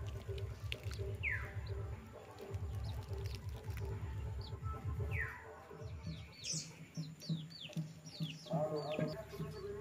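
Birds chirping: a few single downward-sliding calls, then a quick run of short falling chirps in the second half, over a low rumble that stops about halfway through.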